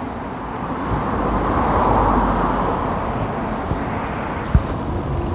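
Road traffic heard from a moving bicycle: a car passing on the road alongside, swelling to its loudest about two seconds in and then fading, over a steady low rumble of wind and tyre noise. One short sharp click a little past four and a half seconds.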